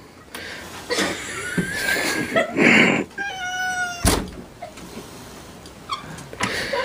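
House cat meowing in several long, drawn-out calls. There is a short rush of noise just before three seconds and a single sharp knock about four seconds in.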